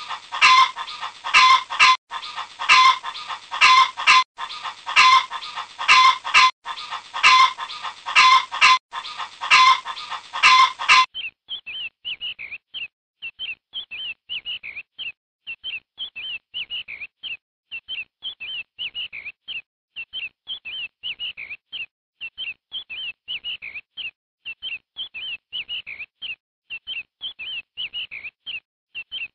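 Chickens clucking in quick, repeated calls. About eleven seconds in, this cuts abruptly to a quieter, steady chorus of chicks giving short, high, falling peeps.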